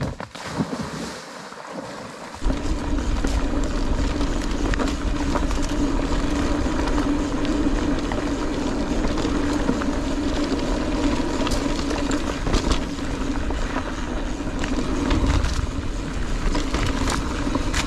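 Wind rushing over a handlebar-mounted action camera's microphone and knobby tyres rolling on a dirt trail as a Scott Genius mountain bike is ridden fast, with frequent clicks and knocks from the bike over rough ground. The riding noise comes in sharply about two and a half seconds in, after a quieter start.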